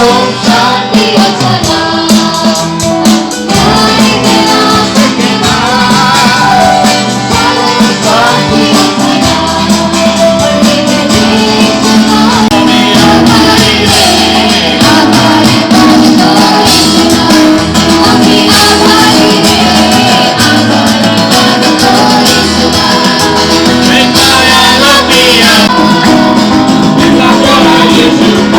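Loud music: a devotional song with singing over instrumental accompaniment.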